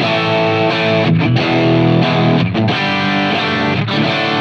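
Electric guitar played through a Line 6 Helix running a PROXY capture of a 1966 Vox AC30: a saturated, broken-up tone with delay on, notes and chords ringing on.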